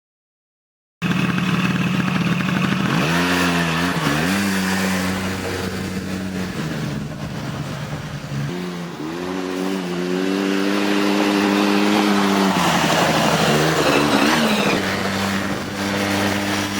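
Small ATV engine running and revving after a sudden start about a second in, its pitch rising and falling several times.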